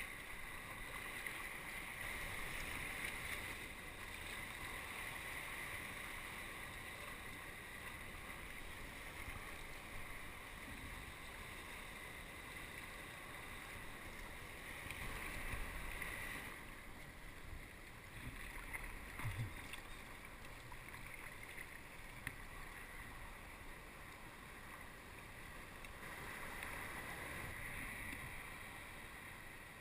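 Water washing and splashing along a sea kayak's hull, swelling and easing, with a couple of light knocks about two-thirds of the way through.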